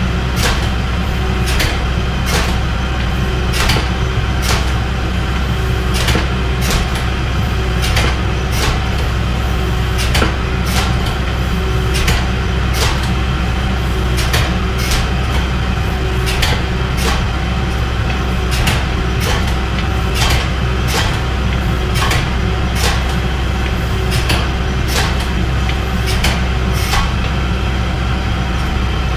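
Hydraulic forging press running, its pump motor giving a steady low hum, with sharp ticks or clanks at irregular intervals of roughly half a second to a second.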